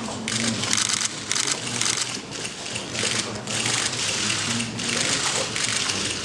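Camera shutters firing in rapid bursts, one run of clicks after another with short gaps between.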